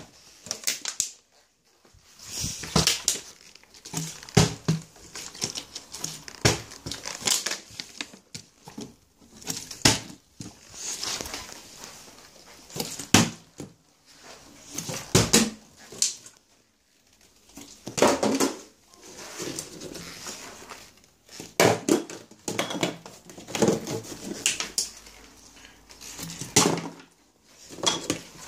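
Thin plastic water bottle crinkling and knocking against kitchen surfaces as it is handled and flipped. The sounds come in irregular spells of a second or so, with short pauses between them.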